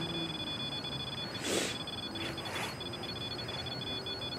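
Ghost-hunting sensor device sounding its electronic alarm, a steady high-pitched tone that breaks off briefly twice: the device has been set off. Two short hissy rustles come in about a second and a half in and again near the end.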